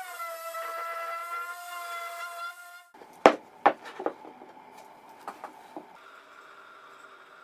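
Random orbital sander running with a steady whine on a plywood block, stopping abruptly about three seconds in. Then three sharp wooden knocks as the plywood blocks are set together on the workbench, followed by faint scratching of a pencil marking the wood.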